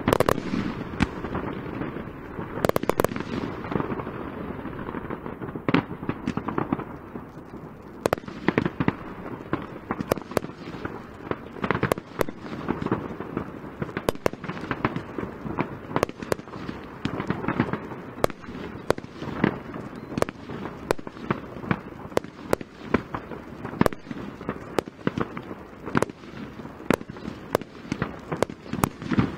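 Fireworks display: aerial shells bursting in a rapid series of sharp bangs over a continuous crackle, the reports coming faster in the second half.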